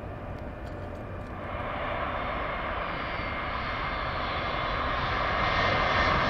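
Jet engines of a Volaris Airbus A320-family airliner running on the runway close by, a steady rushing noise that swells from about a second and a half in and keeps getting louder as the jet comes past.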